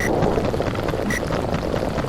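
Underwater ambience sound effect: a steady, muffled rushing noise, with a short high blip about once a second.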